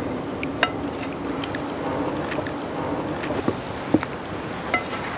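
Wooden spatula stirring mushroom chicken in sauce in a large metal pan over a wood fire, with a steady sizzle and repeated sharp knocks and clinks of the spatula against the pan.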